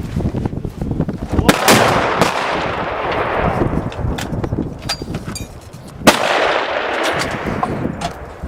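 Gunfire from several shooters: about a dozen shots at uneven spacing, each followed by a rolling echo. A brief lull comes just before the loudest shot, about six seconds in.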